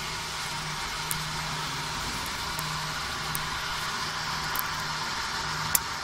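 Nano-bubble aerator running: a steady hiss of air and water with a faint low hum underneath, and a few faint ticks, the sharpest near the end.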